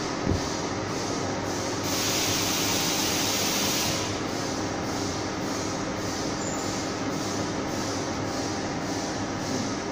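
Ultrasonic fabric slitting machine running with a steady mechanical hum. A low thump comes just after the start, and a louder hiss rises for about two seconds in the middle.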